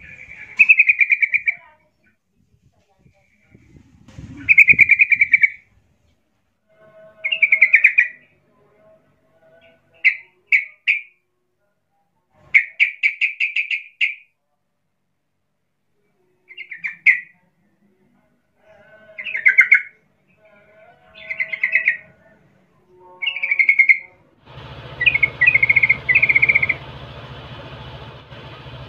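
Yellow-vented bulbul (trucukan) calling: short phrases of quick chattering notes, repeated every two to three seconds. Near the end a steady low hum and hiss comes in under the calls.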